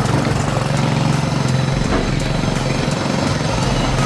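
A steady engine hum, like a motor running at idle, under general street noise.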